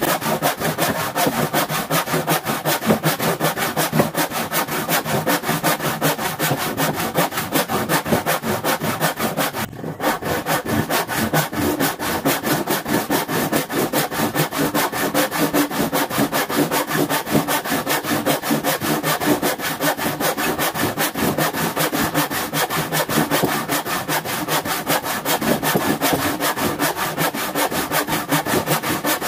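Handsaw cutting through a wooden board in quick, steady back-and-forth strokes, with a short pause about ten seconds in.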